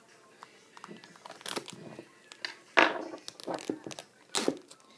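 Packaging of a headphone retail box being handled: irregular crinkling, rustling and tapping clicks, with a sharper crackle near the middle and another near the end.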